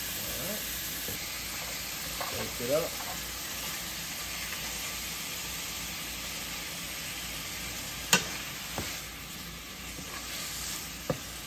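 Ground wild hog meat sizzling steadily in a hot nonstick skillet as it is stirred and broken up with a silicone spoon, with a sharp tap about eight seconds in and another near the end.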